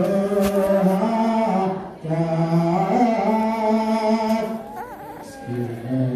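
Liturgical chanting in an Ethiopian Orthodox church service: voices holding long, slow, sustained notes, with short breaks about two seconds in and again near five seconds.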